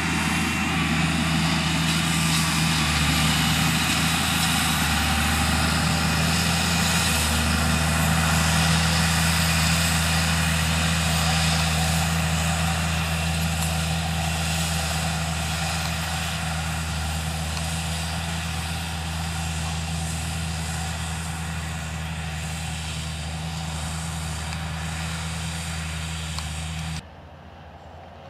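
Case IH Magnum 335 tractor engine running steadily under load while pulling a Vaderstad Spirit seed drill, a low even engine note growing gradually quieter. About a second before the end it cuts abruptly to a much fainter tractor engine, a Valtra 8400 pulling a ring roller.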